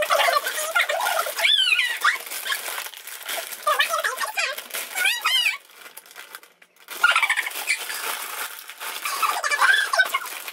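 High-pitched squealing and laughter from young women, with wavy rising and falling cries twice. Under it is the crinkle of a foil crisp packet being torn open.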